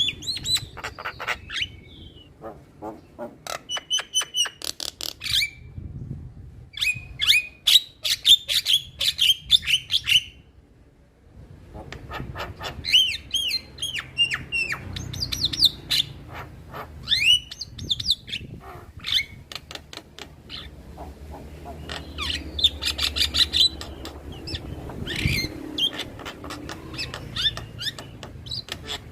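Male Javan myna singing: bouts of rapid clicking rattles mixed with squeaky whistled notes, with a short pause about ten seconds in.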